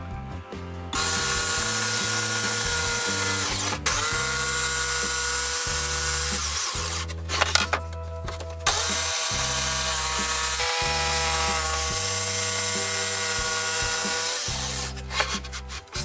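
Electric jigsaw cutting through a veneered chipboard cabinet door: the motor starts about a second in and runs with a steady whine, stops briefly in the middle with a few knocks, then runs again until it cuts out near the end. Background music plays underneath.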